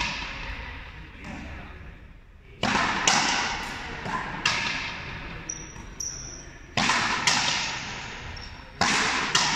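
Frontenis rally: the hard rubber ball cracked by rackets and smacking off the frontón's front wall, sharp hits coming mostly in pairs about half a second apart, every couple of seconds, each with a long echo ringing through the hall.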